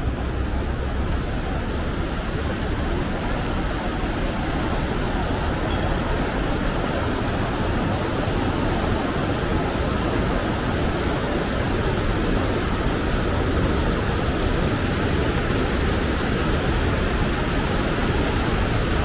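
Steady, unbroken rush of fast-flowing mountain water from a river and waterfall.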